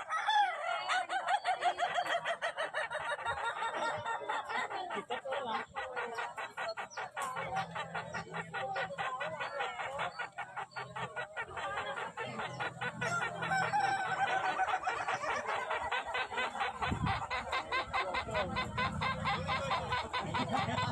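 Ayam Ketawa (Indonesian laughing chicken) crowing in long runs of rapid staccato notes, a chuckling call like human laughter. A low hum runs underneath in the second half.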